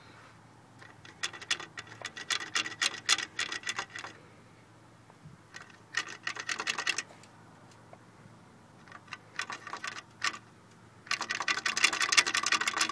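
Four bursts of rapid, dense clicking and clattering, like small hard parts being handled and shaken together; the last burst, near the end, is the loudest.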